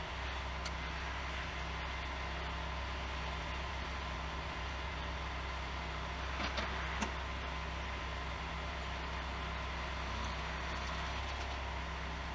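Concrete mixer truck's diesel engine running steadily with a low hum, with a few light clicks about halfway through.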